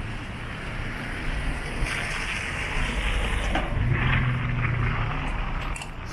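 Street traffic noise with an engine running close by: a low, steady hum that comes up a little past halfway and fades after about a second and a half.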